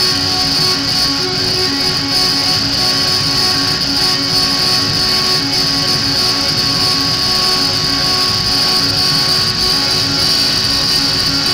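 Loud live electronic noise music: a dense wall of static with a steady high hiss and low tones pulsing in a regular, throbbing rhythm.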